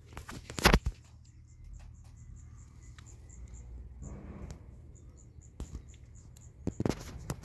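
A kitten chewing a mouse, with sharp cracks and crunches in a loud cluster near the start and another near the end. Behind it a cricket chirps steadily at a few high pulses a second.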